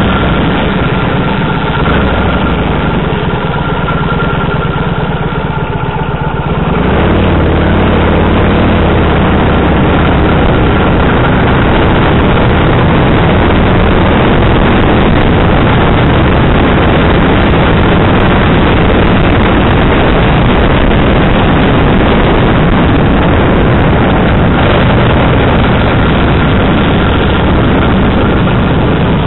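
Kawasaki VN1500 motorcycle's V-twin engine running while riding, mixed with heavy wind rush on the bike-mounted microphone. The sound grows louder and rougher about seven seconds in.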